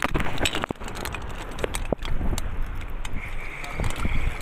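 Handling noise on a dropped phone's microphone as it swings on its strap: scattered knocks and rubbing clicks over a low buffeting rumble.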